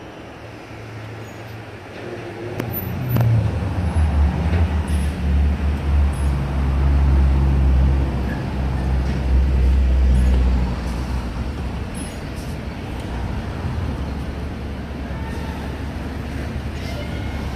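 Orion VII Next Generation hybrid-electric transit bus pulling up close and idling. Its low rumble builds about three seconds in, is loudest until about ten seconds, then eases to a steady lower run.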